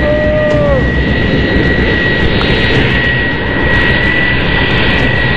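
Jet airliner on a low landing approach: steady jet engine noise with a high, steady whine running through it.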